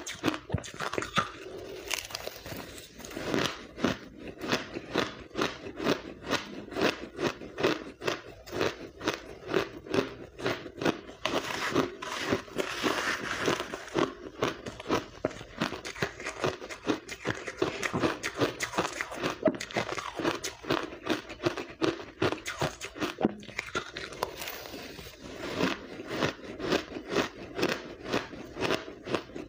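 Frozen pink blender-crushed ice being bitten and chewed, a continuous run of crisp crunches, several a second.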